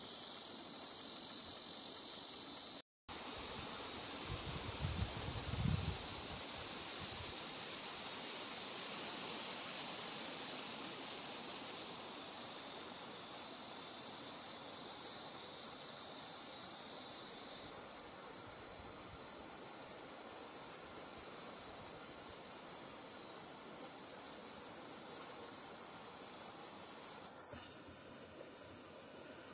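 Background chorus of calling insects: a high, fast-pulsing trill that carries on without a break, over a second steady high buzz that stops about two-thirds of the way through. The sound cuts out for a moment about three seconds in, and a brief low rumble follows.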